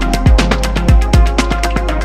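Electronic background music with a fast beat: quick hi-hat ticks several times a second over deep, falling kick-drum thumps.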